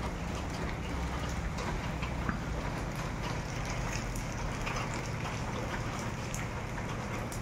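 Heavy rain pouring down, with scattered sharp ticks of drops striking hard surfaces, over a low steady hum.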